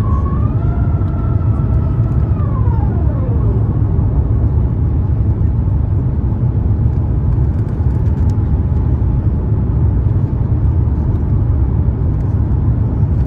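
Airbus A350-900 cabin noise heard from a window seat behind the wing on approach: a steady low rumble of the Rolls-Royce Trent XWB engines and airflow. In the first few seconds a whine holds steady, then falls in pitch and fades out.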